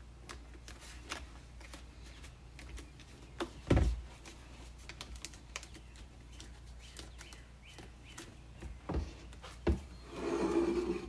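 Light clicks, taps and rustles of EVA foam and plastic pieces being handled and pressed together on a wooden workbench, with a sharp thump about four seconds in and two more near the end. A louder scraping rustle follows as the plastic laundry jug is lifted.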